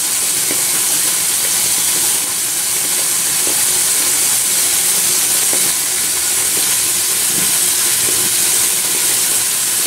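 Steady, even hiss with a few faint soft ticks, from running water or a facial steamer.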